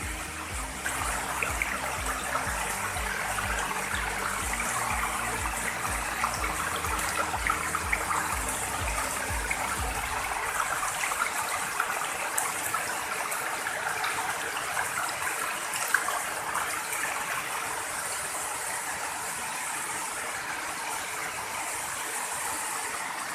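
Waterfall rushing: a steady, even noise of falling water. A low rhythmic pattern of deep tones sits underneath for about the first ten seconds, then stops.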